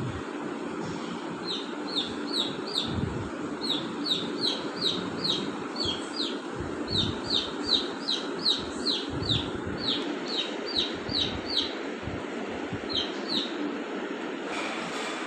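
Parakeets calling: runs of short, shrill, downward-sweeping calls repeated two to three times a second, with a brief pause and then a stop shortly before the end. A steady low hiss lies underneath.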